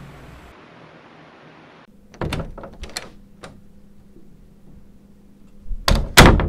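Door sounds over a quiet room: a few light clicks and knocks, then two or three loud heavy thuds near the end.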